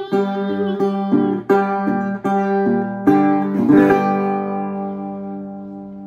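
Resonator guitar picking a run of single notes, then ending the song on a final chord about three to four seconds in that rings on and slowly fades away.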